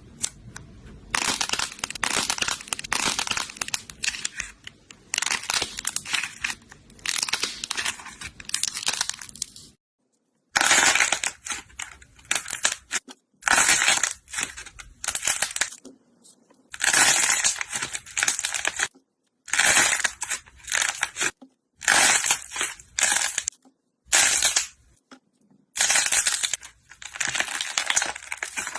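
Slime being squeezed, poked and stretched by hand, giving dense crackling and popping squelches. The sound comes in short takes, each a second to a few seconds long, that cut off abruptly into dead silence several times.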